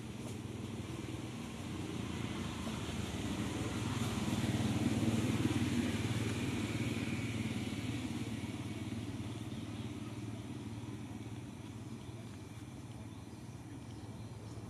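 Motor vehicle passing: a steady engine hum swells to its loudest about five seconds in, then fades away.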